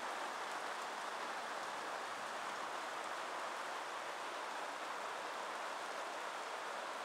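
Steady rain falling: an even hiss that holds at one level throughout, with no thunder.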